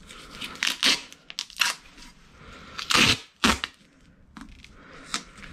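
Silver duct tape being torn and pressed down by hand: a series of short rips and crinkles, the longest and loudest about three seconds in.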